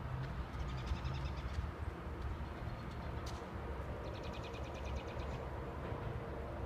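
Distant ACA P-50 outdoor warning sirens sounding together as a faint steady chord during their monthly test, under a low rumble. A bird gives a rapid trill about a second in and again about four seconds in.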